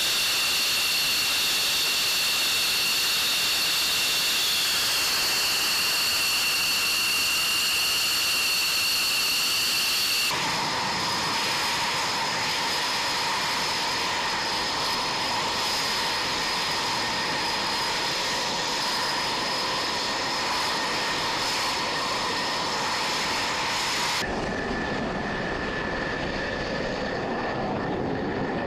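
Jet fighter engines running at ground idle on the flight line: a steady high whine over a loud hiss. The sound changes suddenly at two cuts, about ten seconds in and again four seconds before the end. It moves from an F-16's engine to a Eurofighter Typhoon's twin engines and back to a taxiing F-16.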